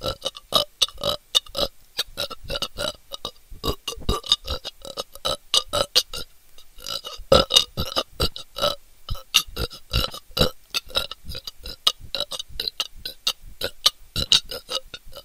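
A person burping in rapid fire, swallowing air into the throat and belching it straight back out. The burps come about two to three a second, with a brief break about six seconds in.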